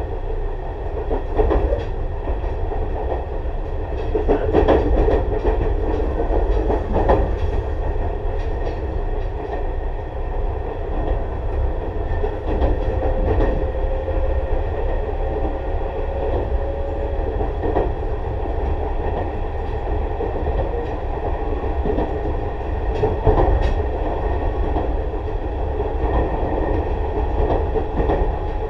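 Tobu 6050 series electric train (motor car MoHa 6169, TM-63 traction motors, resistance control) running along the line: a steady rolling rumble with occasional short knocks from the wheels.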